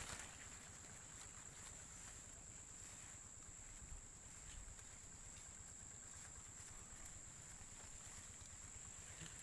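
Near silence: faint outdoor background with a steady, high-pitched insect drone, and a few faint rustles and clicks as leafy branches are handled.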